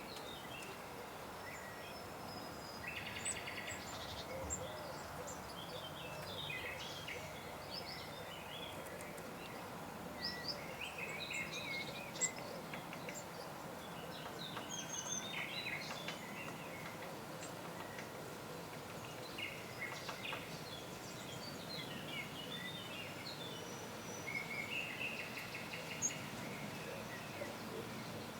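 Forest songbirds singing and calling, many short chirps, trills and whistled glides overlapping, with a buzzy call about three seconds in and again near the end, over a faint steady background hiss.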